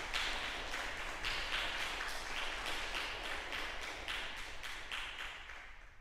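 Applause: hand clapping from a small audience, dying away near the end.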